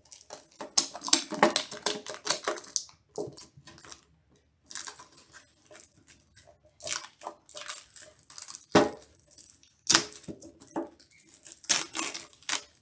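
Clear plastic shrink-wrap being torn and peeled off a metal trading-card tin, crinkling and rustling in irregular bursts, with a few sharper handling knocks.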